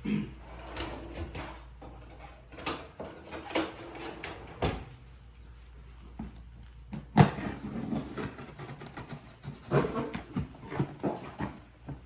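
Packaging being handled: scattered rustles, taps and knocks, with one sharp knock about seven seconds in.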